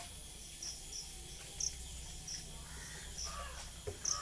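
Outdoor ambience: a series of short, high chirps from a small wild creature, repeating about twice a second over a steady low background hum.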